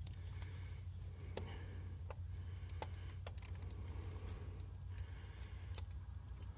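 Scattered light metallic clicks and clinks from a bolt and hand tool being worked into the front plate of a truck's AC compressor clutch, over a steady low hum.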